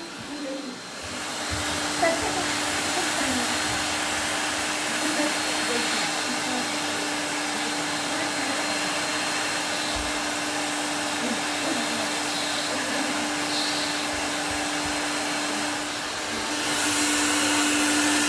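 Drum-type canister vacuum cleaner running with a steady hum; it grows louder about a second in and again near the end.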